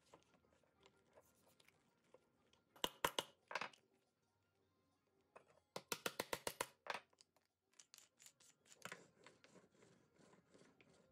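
Hand work on small wooden toy parts: a few sharp wooden clicks as pieces are fitted, then about six seconds in a fast run of about eight short sandpaper strokes on the end of a wooden dowel peg, followed by lighter wooden taps.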